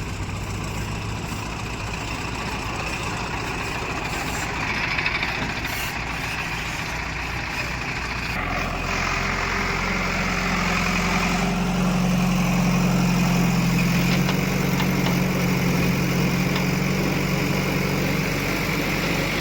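Heavy diesel engine running steadily, then picking up about eight seconds in and running louder under more throttle.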